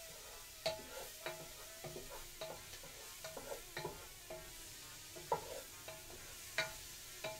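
Wooden spoon stirring diced vegetables in a metal stockpot, knocking and scraping against the pot at irregular moments so that it briefly rings, over a soft sizzle of the food frying.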